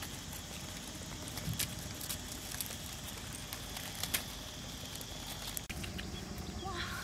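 Quiet outdoor ambience: a steady low background noise with a faint high steady tone and scattered light clicks and crackles, a few of them standing out at about one and a half, two and a half and four seconds in.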